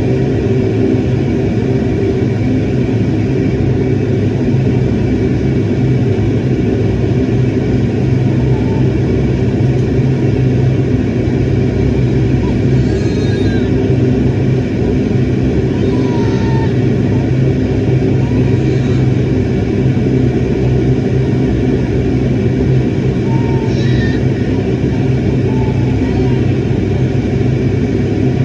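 Steady engine drone and airflow rumble inside a jet airliner's cabin, heard from a window seat, with constant low hums and a thin steady whine. Faint voices come through briefly a few times in the second half.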